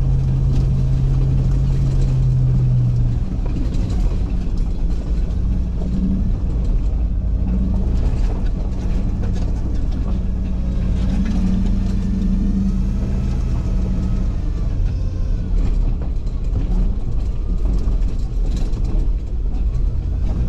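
Tow truck driving slowly along a dirt and gravel lane, heard from inside the cab: a steady low engine and tyre rumble. A steady hum stops about three seconds in.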